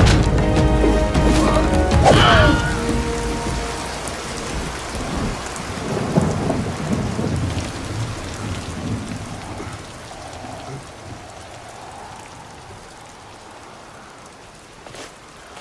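Rain falling with rumbling thunder, fading away over the last several seconds. Music plays during the first couple of seconds.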